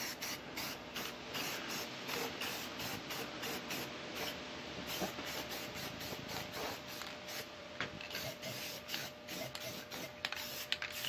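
Aerosol spray-paint can hissing in repeated short passes as the outboard's lower unit gets a coat of white paint.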